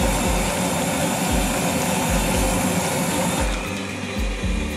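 Gas wok burner running at full flame with a loud, steady roar under a wok of boiling soup. About three and a half seconds in, the roar drops away abruptly.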